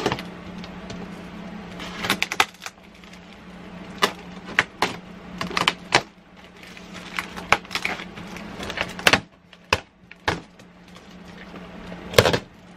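Packing tape being cut and ripped off a cardboard shipping box, in irregular sharp tearing scrapes, with cardboard flaps rubbing as they are pried open; the loudest rip comes near the end. A steady low hum runs underneath.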